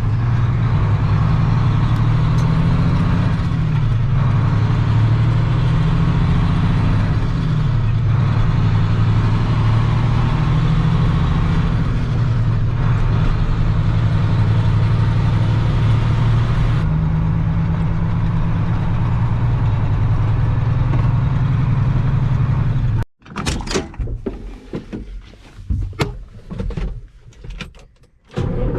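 Heavy farm-machinery engine droning steadily at a constant speed. Near the end the drone cuts off abruptly, and a few seconds of scattered knocks and clatter follow.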